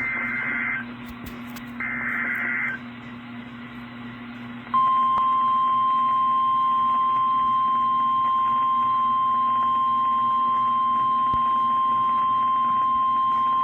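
NOAA Weather Radio Emergency Alert System warning received over a weather radio with a steady hum underneath: two shrill warbling bursts of SAME header data, then about five seconds in the 1050 Hz warning alarm tone, one steady loud tone held for about nine seconds that cuts off sharply. Together they signal the start of a severe thunderstorm warning broadcast.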